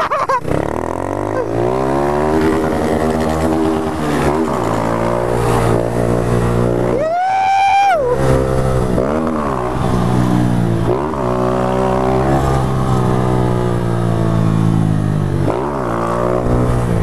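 Small motorcycle engine revving up and down several times under load, the pitch climbing and dropping again. About seven seconds in a high steady whine stands out for about a second.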